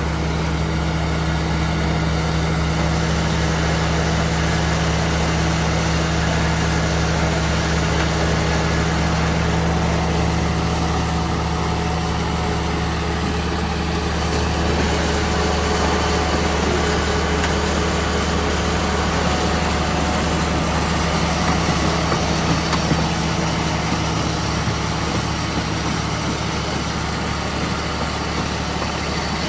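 Sweet corn harvester's engine running steadily at a constant speed.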